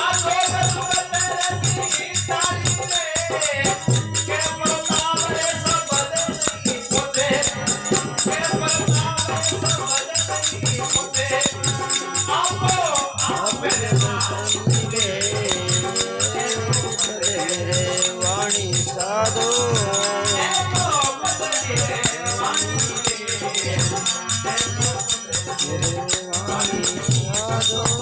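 Rajasthani devotional bhajan music with a steady drum beat and dense jingling rattle-like percussion under a melody that bends up and down.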